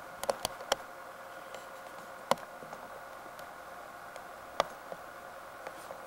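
A handful of sharp, irregular clicks and ticks over a steady hiss with a faint even hum: several close together at the start, then single louder clicks about two and four and a half seconds in.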